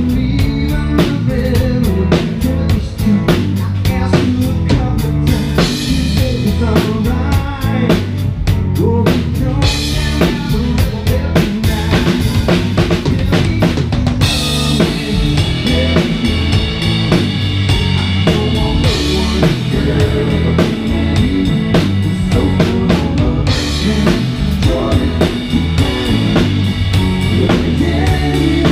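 Live rock band playing an instrumental passage, heard from on stage with the drum kit loudest: a steady beat of bass drum and snare with cymbals over a heavy bass line.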